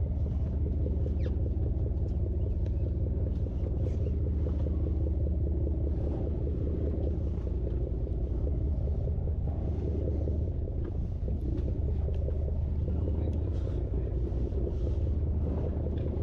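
Steady low rumble and hum of a sportfishing boat's engine running, with faint scattered ticks as an angler cranks a big lever-drag conventional reel at the rail.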